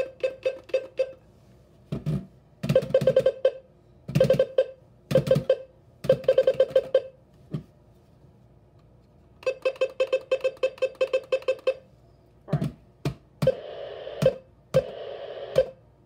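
Alert Works EAR-10 weather alert radio beeping as its buttons are pressed: runs of short, rapid electronic beeps, up to about eight a second, with a few knocks from the radio being handled in between.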